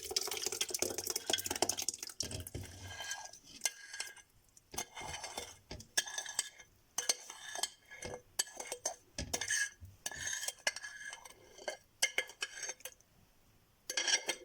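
A spoon scraping and knocking against a bowl and the blender jug as sugared lemon peel is scooped in, in short uneven bursts with a brief pause before a last scrape near the end.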